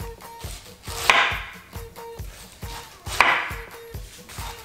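Kitchen knife slicing down through a peeled pineapple and striking a wooden cutting board: two cuts about two seconds apart.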